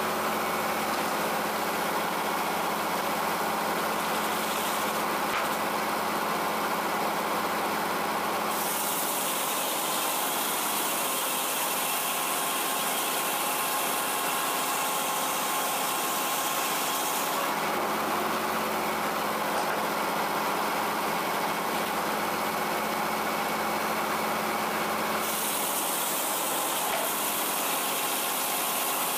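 Frick No. 00 circular sawmill running steadily under engine power while its blade saws boards from a quartered chestnut oak log. A brighter hiss comes in for two long stretches over the steady machine sound.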